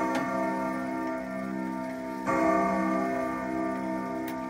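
1978 Howard Miller triple-chime grandfather clock striking the hour on its chime rods. The hammer hits once about two seconds in, and the deep, rich ringing tone of that stroke takes over from the fading ring of the stroke before. Light ticks from the movement sound under it.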